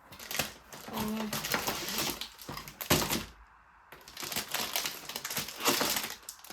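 Plastic packaging rustling and small parts of a flat-pack storage-drawer kit clicking against each other as they are handled, in irregular bursts with a short pause in the middle.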